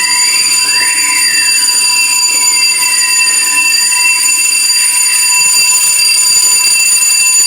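Electronic fire alarm sounders going off loudly during a test of the fire alarm system. A steady high continuous tone runs under a slow siren wail that rises and falls every few seconds.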